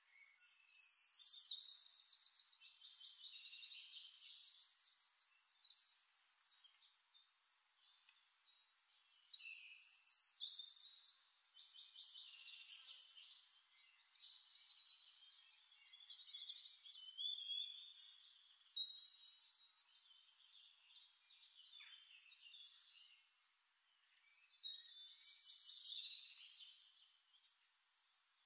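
Songbirds singing: bursts of rapid trills and warbling phrases, a few seconds apart, from a nature-sound recording.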